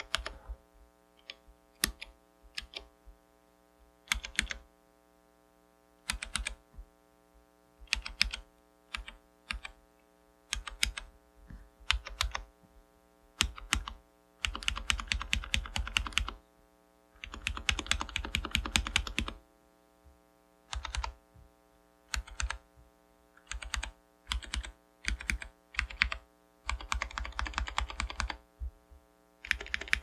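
Typing on an Ortek MCK-84 mechanical keyboard with Alps SKCM Brown tactile switches, a steel plate, an aluminium case and DSA keycaps. Scattered single keystrokes are broken by fast runs of continuous typing around the middle and near the end.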